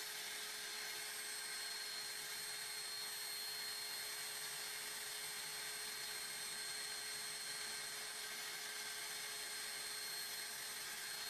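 Small vacuum cleaner running steadily with a high whine, drawing air through the hose on a vacuum-forming mold press; its suction is too weak to pull the heated plastic down into a mold.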